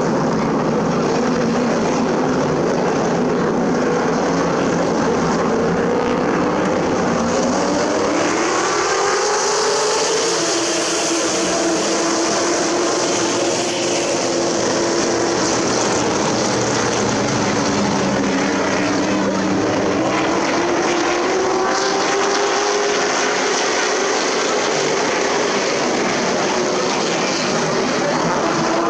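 Super Truck race engines running at speed on an oval track, several at once, their pitches rising and falling as the trucks go round the corners and accelerate down the straights.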